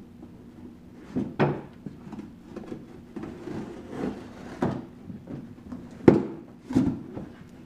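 Irregular knocks and thumps, as of things being handled and set down, about half a dozen over several seconds; the loudest comes about six seconds in.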